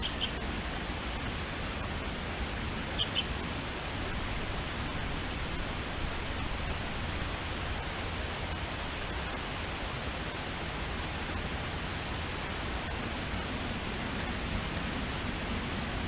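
Forest ambience recording: a steady, even hiss of natural background noise. Two short high chirps break through, one right at the start and a double one about three seconds in, and a faint thin high tone comes and goes.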